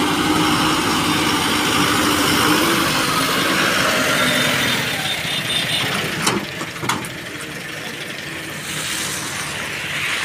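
Eicher truck's diesel engine running as it pulls away, towing a broken-down second truck on a rigid iron tow bar. Two sharp knocks come about six seconds in, and the engine noise eases off after that.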